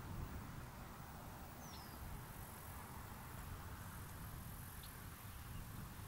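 Outdoor ambience with a low steady rumble and a light hiss, and two brief, faint high bird chirps, one about two seconds in and one near the end. No siren is sounding.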